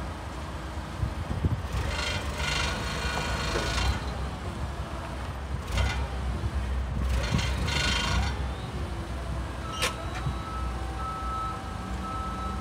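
Propane Hyster forklift engine running steadily, rising in two spells of louder hiss and whine as its hydraulics lift the front of a heavy truck chassis. A sharp click comes about ten seconds in, then a faint high beep repeating.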